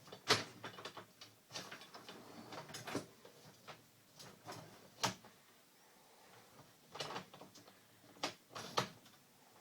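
Plastic dishwasher filter and spray-arm parts clicking and knocking as they are handled and fitted back together by hand: a string of separate sharp clicks, the loudest just after the start and about five seconds in.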